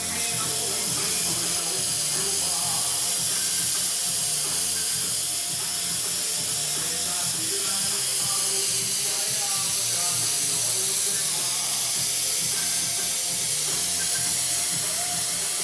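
Airbrush hissing steadily with compressed air, with faint music underneath.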